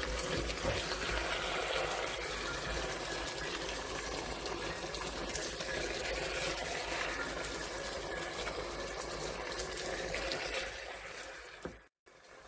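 Reduced tomato sauce bubbling and sizzling in a frying pan on the heat, a steady crackly hiss, with a few light knocks of a slotted spatula as drumsticks are lifted out. The sound fades near the end and cuts off.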